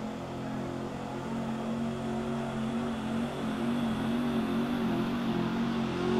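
Pickup truck's engine running hard under load while it pulls a weight-transfer sled in a truck pull. It holds a steady pitch with a slight wobble and gets louder toward the end.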